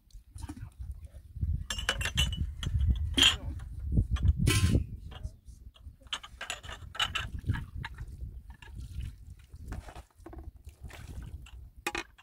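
Metal kettles clinking and water splashing in a basin, over a low rumble that is strongest in the first half.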